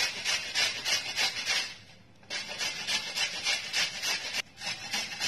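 Fresh amla (Indian gooseberry) being grated on a round stainless-steel hand grater: quick rasping strokes, about four a second, with a brief pause about two seconds in.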